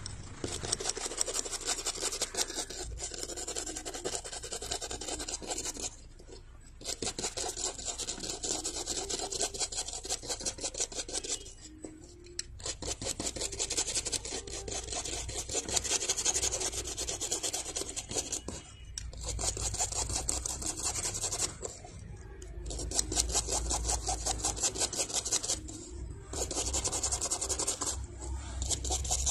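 Rapid scraping strokes on a small hard surface, in bursts of a few seconds broken by short pauses: residual glue being scraped off a phone CPU.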